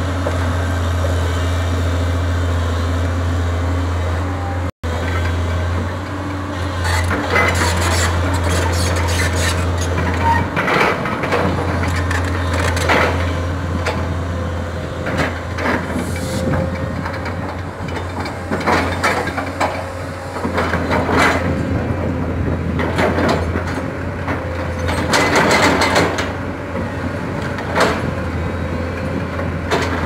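Crawler excavator's diesel engine running with a steady low drone as it digs and dumps rubble. From a few seconds in, rock, soil and broken asphalt clatter and knock against the bucket and into a dump truck's steel bed.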